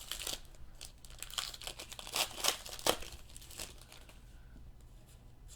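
Baseball trading cards and their pack wrapper being handled: crinkling and rustling with a few sharper crackles in the first three seconds, growing fainter after about four seconds.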